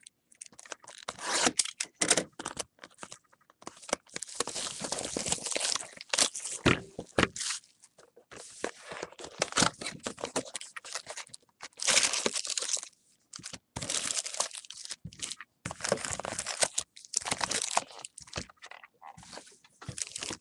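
A cardboard trading-card hobby box being torn open and its foil-wrapped card packs pulled out and stacked: crinkling, rustling and tearing in irregular bursts with short gaps.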